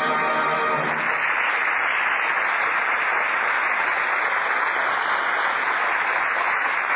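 Radio studio audience applauding steadily; the orchestra's playoff music stops about a second in.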